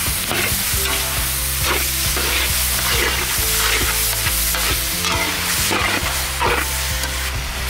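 Metal spatula stirring and scraping onions, capsicum and chilli frying in sauce in a large metal kadai, with a steady sizzle under repeated scrapes about every half second. This is the Manchurian masala being fried until it is ready.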